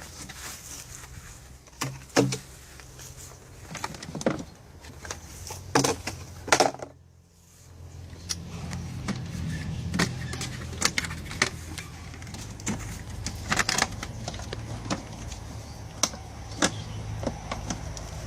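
Sharp clicks and knocks of engine-bay parts on a 2007 BMW E90 being unfastened and handled, over a steady low hum. The hum drops away almost to nothing about seven seconds in, then comes back stronger.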